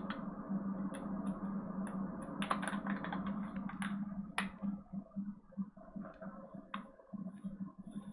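Clicks, taps and rustles from a G Fuel stick pack and a plastic shaker cup being handled and readied on a desk, with a sharp click a little after four seconds in, over a steady low hum.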